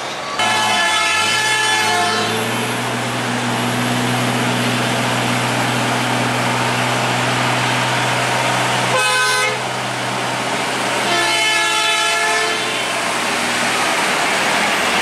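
Bus horns sounding three times: a long blast about half a second in, a short one near the middle and another about two seconds later. Under them, the steady drone of a heavy bus engine under load, climbing a steep hairpin grade.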